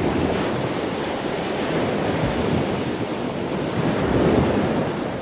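Rushing water: a steady, dense hiss of moving water with slight swells in level.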